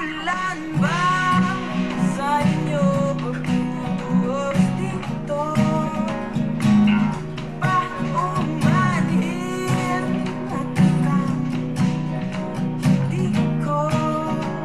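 Acoustic guitar strumming the verse chords G and B minor, with a voice singing a Tagalog verse over it.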